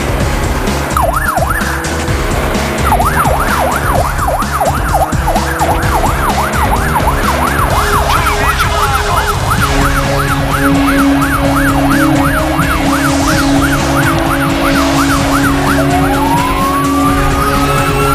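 Fire engine siren on a yelp setting, sweeping quickly up and down about three times a second. Near the end it switches to a slow rising wail.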